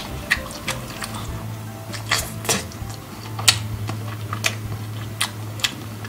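Close-up chewing of braised meat: irregular sharp wet clicks and smacks, a few a second, over soft background music with a low steady hum.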